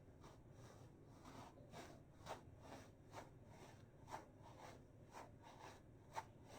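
Banana squishy toy being squeezed and handled: faint, soft rubbing and crackling touches, about two or three a second, a few a little louder.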